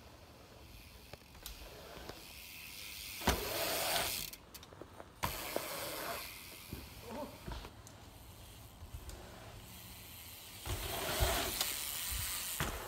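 BMX bikes riding a dirt-jump trail: tyres hissing over packed dirt, with a sharp knock about three seconds in, likely a landing.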